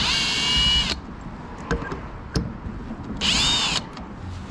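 Cordless drill-driver running in two short bursts, about a second and then about half a second, its whine rising as it spins up, backing out the screws of a mount on a kayak deck. A few light clicks between the bursts.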